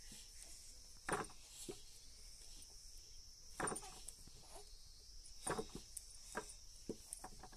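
Insects chirring steadily at a high pitch, with about six short soft knocks at irregular intervals, the loudest about a second in and near the middle.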